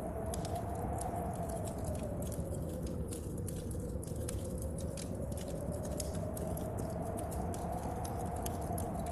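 Storm ambience: wind howling in one slowly rising and falling tone over a steady low rumble, with many small sharp clicks and pops from a crackling fire and rain tapping on window glass.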